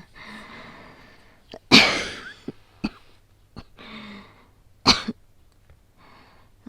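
A woman coughing, acted as an asthmatic with a cold who is short of breath: two harsh coughs about three seconds apart, with laboured breaths drawn in between.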